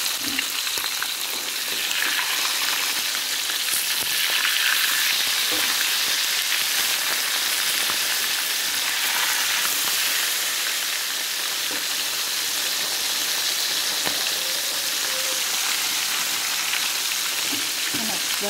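Whole red tilapia deep-frying in hot oil in a wok, a steady sizzle, stirred now and then with a spatula.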